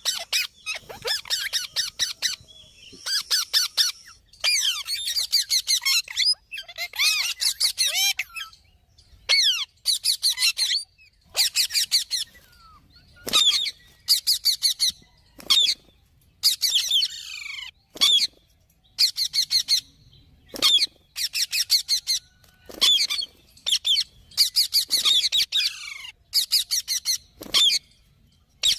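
Indian ringneck parakeet screeching in repeated bouts of rapid, harsh calls, each bout about one to two seconds long, with short pauses between them.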